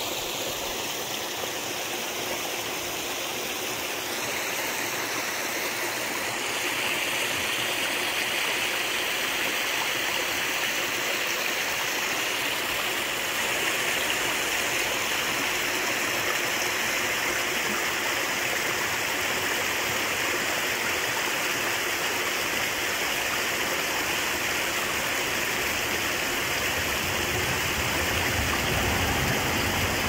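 River flowing, a steady rushing of water that grows a little louder about six seconds in.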